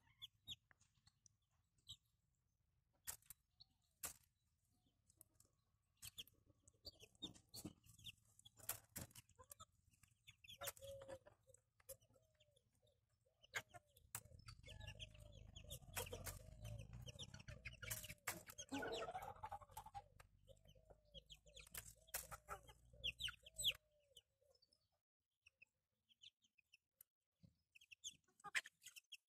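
Bantam chickens clucking softly while feeding, with a run of short repeated clucks about two a second through the middle and one higher rising call among them. Scattered sharp ticks throughout.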